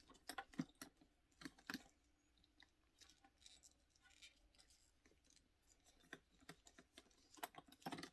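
Faint clicks, taps and scrapes from a leather handbag strap and its fittings being worked by hand to lengthen it, busiest early on and again near the end.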